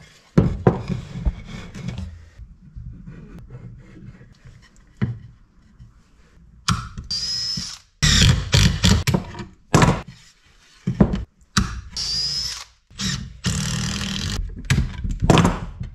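Cordless drill driving screws into the corners of a small wooden door frame, running in several short bursts with a high whine, the first about seven seconds in. A few light knocks of the wooden pieces on the bench come first.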